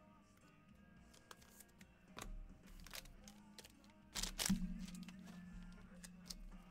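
Faint background music, with a few soft clicks and rustles as trading cards and rigid plastic card holders are handled; the loudest handling noise comes just past four seconds.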